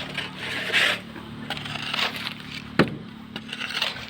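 Construction work: short scraping and rubbing sounds, with one sharp knock a little under three seconds in.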